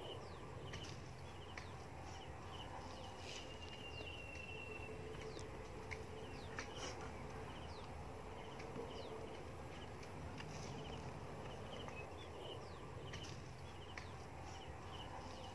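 Faint outdoor ambience of birds chirping and insects, with short high chirps and repeated pulses. Occasional light clicks come from bamboo slats being handled.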